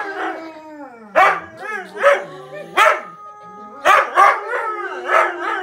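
Husky howling at a television, a string of wavering calls gliding up and down, with about six loud, sharp yowls roughly a second apart. Music from the television plays underneath.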